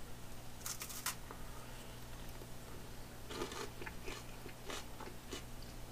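A person bites into a crisp Sociables cracker spread with cream-cheese ball with a sharp crunch about a second in. Quieter crunches of chewing follow in the second half.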